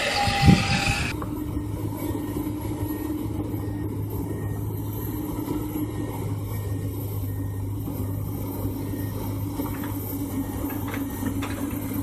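Breaking surf with a heavy thump about half a second in. It then gives way to a Komatsu hydraulic crawler excavator's diesel engine running with a steady low drone.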